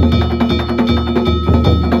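Danjiri festival percussion (narimono): a taiko drum and hand-struck metal gongs (kane) played in a steady, driving rhythm, the gongs ringing between strokes.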